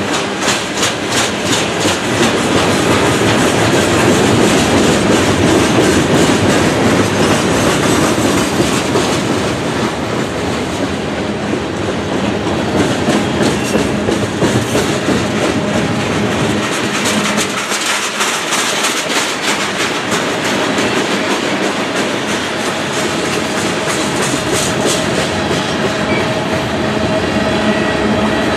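Mixed freight cars of a passing manifest train rolling by close at hand: a steady rumble of steel wheels on rail with repeated clickety-clack as the wheels cross rail joints.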